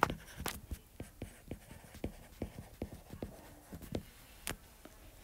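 Stylus tip tapping and clicking on a tablet's glass screen while handwriting: a string of short, irregular taps, about two or three a second, with a sharper one about four and a half seconds in.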